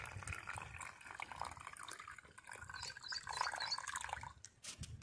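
Lemon water pouring in a thin stream from a stainless steel pot into plastic cups, faintly splashing and trickling as the cups fill.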